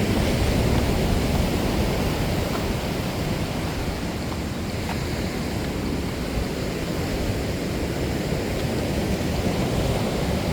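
Steady rushing noise of ocean surf mixed with wind buffeting the microphone, heaviest in the low end.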